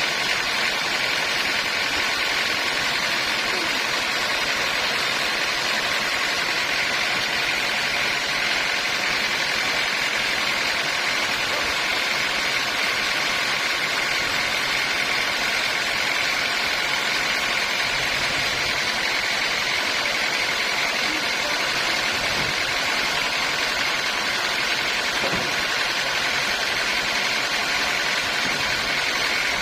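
Sawmill machinery running steadily, an even mechanical noise with no change in pitch or loudness.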